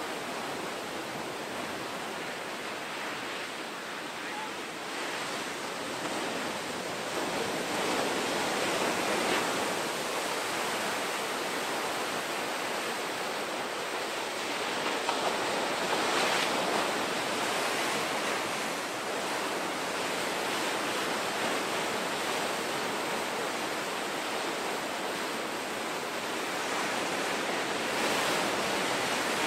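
Ocean waves breaking and surf washing in: a continuous rushing, with several louder surges as waves crash.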